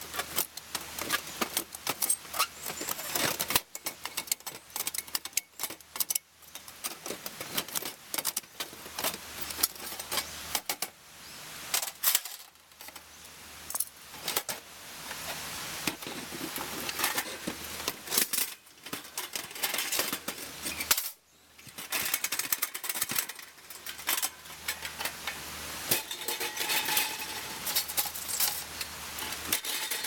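Stainless steel parts of a Montbell Compact Fire Pit clinking, rattling and tapping against each other and against a metal can as the fire pit is emptied of ash and folded up. The clinks come irregularly, with a brief quiet gap a little after two-thirds of the way through.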